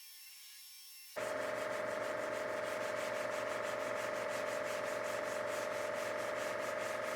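Sandpaper cutting guide-coated body filler on a thin sheet-metal door panel. It is a steady scratchy rasp with a fast, even stroke rhythm that starts abruptly about a second in, after a faint hum.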